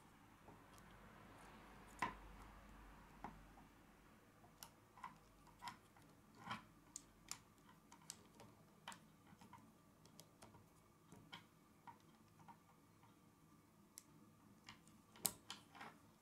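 Plastic K'nex rods and connectors clicking and snapping together as they are pushed into place: irregular small clicks, with a louder snap about two seconds in and another near the end.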